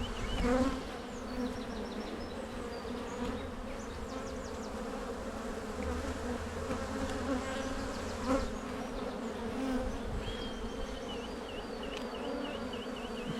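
Many honey bees buzzing around an open hive as its frames are lifted and inspected: a steady, even hum of the colony.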